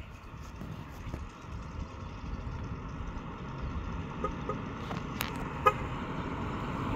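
A steady low mechanical rumble that slowly grows louder, with a few short horn-like toots and a sharp click between about four and six seconds in.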